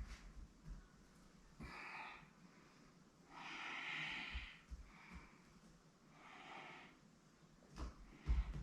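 A person breathing audibly in three long breaths a couple of seconds apart, the middle one loudest, with a few soft low thumps near the end.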